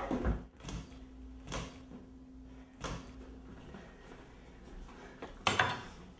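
Four separate knocks and clicks, the loudest near the end, over a faint steady low hum.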